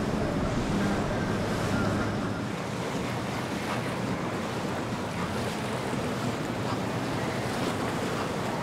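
Outboard engines of passing powerboats running, under a steady rush of wake, chop and wind on the microphone; the low engine hum is strongest in the first two seconds.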